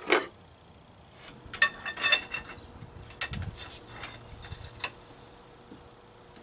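Steel hand tools clinking and clanking against each other and the ATV's metal parts, in two short clusters of ringing strikes with a dull thump between them.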